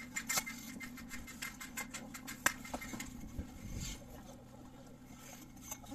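Irregular light clicks and scratching, dense for about the first three seconds, then thinning to a few scattered clicks.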